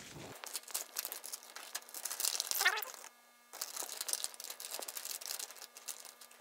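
Plastic packaging crinkling as hands handle a bubble-wrap envelope and a crinkly anti-static bag holding a circuit board. The crinkling stops briefly about three seconds in, then resumes and thins out near the end.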